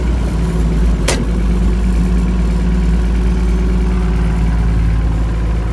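Massey Ferguson 510 combine running steadily at constant speed, with one sharp click about a second in.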